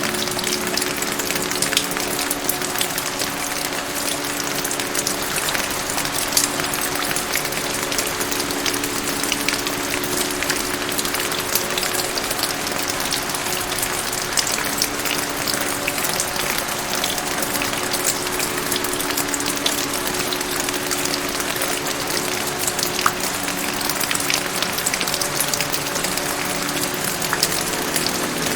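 Steady rain: a dense, even patter of drops. Soft background music of long held low notes sounds underneath, shifting every few seconds.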